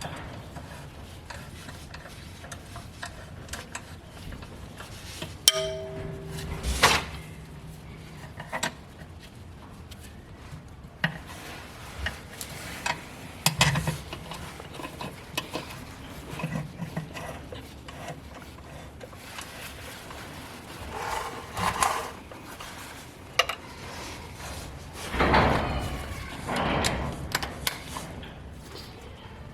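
Scattered knocks, clicks and scrapes of hand tools and metal parts being handled while the engine's oil sump is resealed and refitted, with a few louder scraping bursts near the end.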